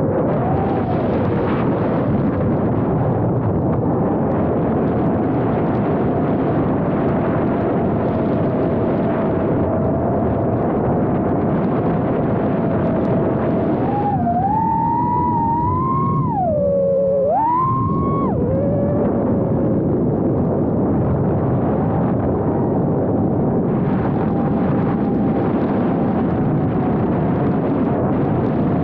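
Emax Babyhawk II FPV quadcopter's brushless motors and propellers whining in flight, heard through the onboard camera's microphone, with a steady rushing noise underneath. The whine holds one pitch for long stretches, then rises and dips sharply with throttle changes about halfway through.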